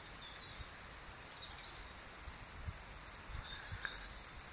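Quiet outdoor ambience: a faint, steady low rumble with a few short, high bird chirps between about three and four seconds in.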